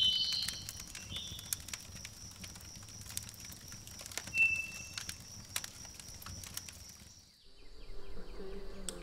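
Wood campfire crackling with many sharp pops, over a faint steady high whine, with a short high chirp about four and a half seconds in. The crackling cuts off suddenly a little after seven seconds.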